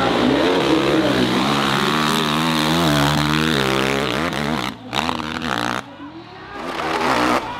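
Dirt bike engine revving hard under full throttle as the bike launches and climbs a steep hill, its pitch rising and falling with the throttle. In the second half the engine sound breaks off abruptly a few times and comes back.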